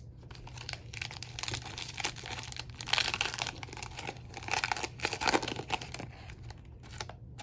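A foil trading-card pack wrapper being torn open and crinkled by hand, in a run of irregular crackles that are loudest about three seconds in and again about five seconds in.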